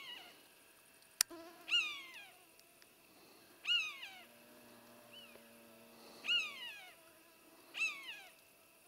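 Roe deer call (manok) blown to imitate a doe's high squeak: four short peeps, each falling in pitch, about two seconds apart, used to lure a rutting buck. A sharp click just after a second in.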